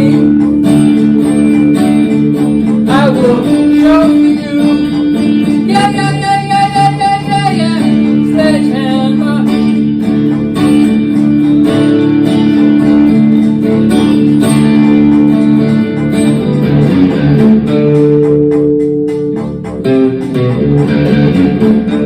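Music: an instrumental passage of a rock song led by guitars, with sustained and bending lead lines over strummed chords.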